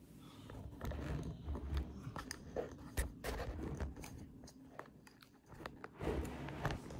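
Handling noise from a phone camera being picked up and repositioned: irregular rubbing and scuffing with scattered knocks and clicks, one sharp knock about three seconds in.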